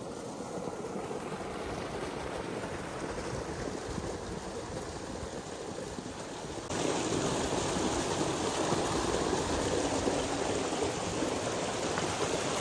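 Shallow forest stream running over pebbles: a steady rush of water that gets louder a little over halfway through.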